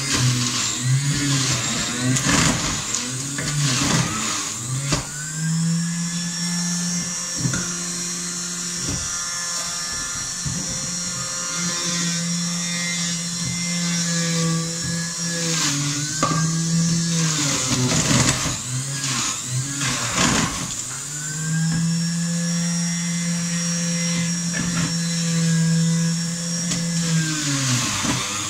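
Electric juicer motor running with a steady hum that sags in pitch and recovers several times as apple and orange pieces are pushed down the feed tube and ground, with grinding noise while it is loaded.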